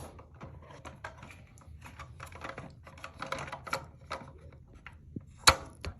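The plastic dual-flush valve and its rubber gasket being handled and pulled apart: a run of small irregular clicks and taps, with one sharp, louder click about five and a half seconds in.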